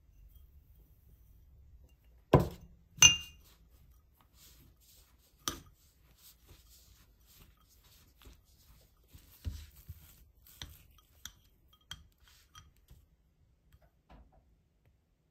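Hard objects knocked and clinked together: two loud knocks about half a second apart a couple of seconds in, the second ringing briefly like glass, then a scatter of lighter taps and clicks.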